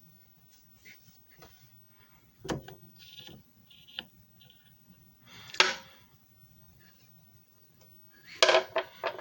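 Handling clicks and knocks around a disc repair machine, in a quiet room. There is a sharp knock a couple of seconds in and a louder one about halfway through. Near the end come three quick knocks in a row.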